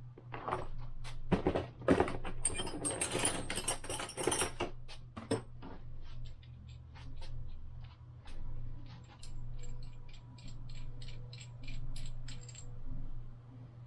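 Metal hand tools clattering and clinking for the first few seconds. Then a steady run of light, evenly spaced clicks, about three a second, that stops near the end.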